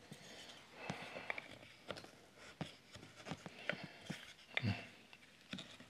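Faint, scattered light clicks and scrapes of wooden lattice strips being handled and marked with a marking gauge at the bench.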